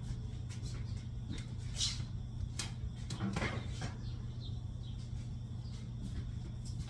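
Kitchen items being handled on a counter: scattered light clicks, taps and a couple of brief scrapes, over a steady low hum.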